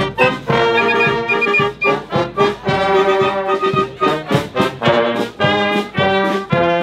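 Brass marching band playing a march: trumpets, saxophones and tuba holding tuneful notes over a steady bass-drum beat.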